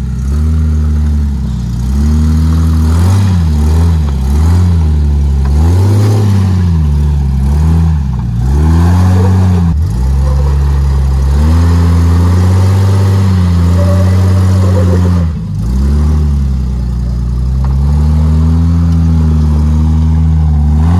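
Lifted Jeep Cherokee XJ's engine revving up and down over and over as it crawls up a rock ledge, the pitch rising and falling every second or two. It drops off briefly about fifteen seconds in, then picks up again.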